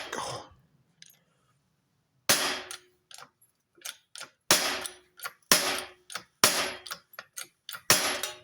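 A stuck carbon seatpost cracking free in jerks from a corroded steel seat tube under a seatpost puller: about six loud, sharp cracks, roughly a second apart later on, with quieter clicks between.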